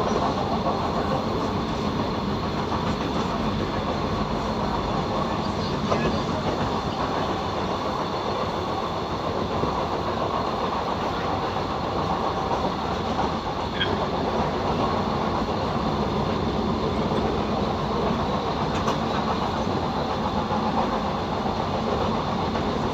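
Suburban train running steadily along the rails: an even, unbroken rumble with a couple of faint clicks from the track.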